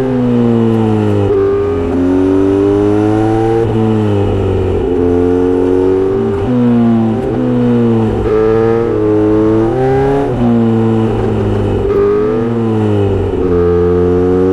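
Kawasaki Z900RS inline-four running through a short straight-pipe exhaust with a 70 mm silencer. Under way, the revs climb and drop again and again.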